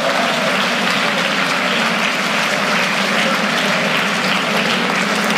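Audience applauding steadily, many hands clapping together in a lecture hall.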